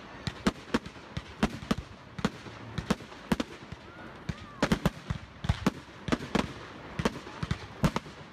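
Aerial fireworks bursting in a rapid, irregular string of sharp bangs, several a second, over continuous crackling.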